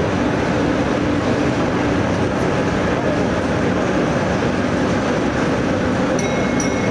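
Overhead crane running while it lifts a suspended armoured personnel carrier: a steady, even mechanical rumble with a low hum through it. Near the end a quick run of high ticks starts.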